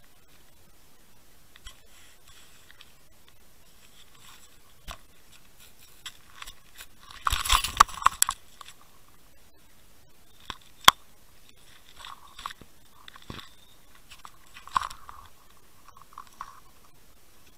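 Irregular knocks, crunches and scrapes picked up underwater through a camera housing: a loud crunching, scraping cluster about seven seconds in, one sharp click near eleven seconds, and smaller scrapes and clicks after it.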